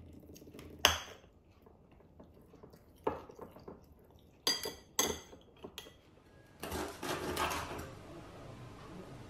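Metal spoon clinking against a ceramic bowl: a few sharp clinks, the loudest about a second in, and two ringing clinks about half a second apart a little past the middle. Near the end comes about a second of scraping.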